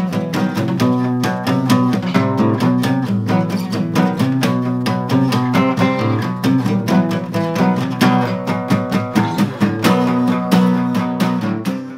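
Acoustic guitar played live, strummed quickly in a steady, driving rhythm.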